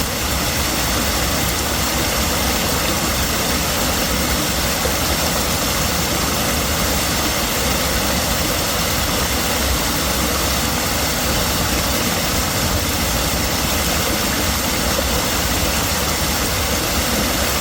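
Rushing water: a loud, steady, unbroken rush.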